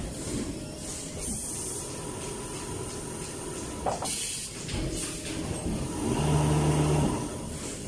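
Pneumatic motor assembly machine running on a factory line: short air hisses from its cylinders about a second in and again around four seconds in, over a continuous mechanical clatter. Near the end a louder low hum holds for about a second.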